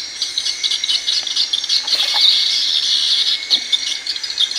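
Dense insect chorus: a shrill, high chirring that flickers rapidly without a break.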